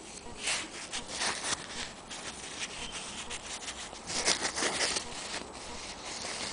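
Irregular rubbing and scraping of fingers and cloth right against the microphone, with louder bursts about four seconds in: camera handling noise.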